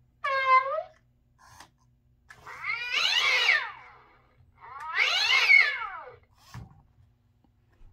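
Gemmy Fraidy Cat animatronic toy playing recorded cat sounds: one short meow, then two long, drawn-out yowls that rise and fall as it arches its back. There is a low thump near the end.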